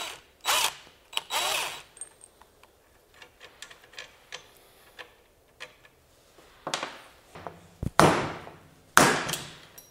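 Two short bursts of a cordless power tool turning a socket on the rocker end of a 1942 Harley-Davidson WLA springer fork, then light clicks of metal parts being handled, and three sharp knocks near the end as the part is worked with a wooden block.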